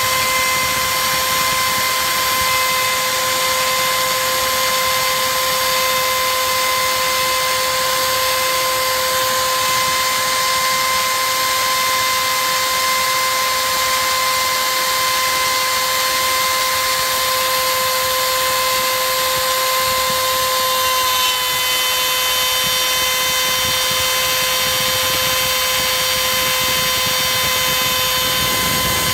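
CNC router spindle running with a steady high whine as its bit carves a relief into a wooden blank, over a steady hiss of cutting. The whine's overtones shift slightly about two-thirds of the way through.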